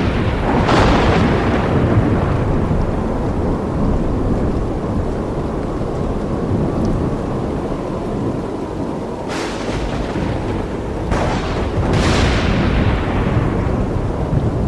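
Thunder rumbling steadily, with a sharp crack about a second in and three more cracks in quick succession past the middle, each fading away.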